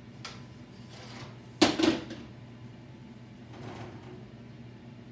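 Two sharp knocks in quick succession about a second and a half in, typical kitchen clatter from cupboards or cookware, over a steady low hum; a few fainter soft sounds come and go around them.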